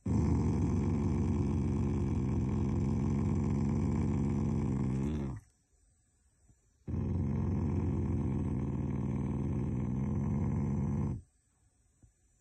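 Black Shiba Inu growling low and rough in two long growls, one of about five seconds and then, after a short pause, one of about four seconds, while its face is stroked. It is an affectionate growl, not a threat: the owner says the dog growls only at family as a show of affection.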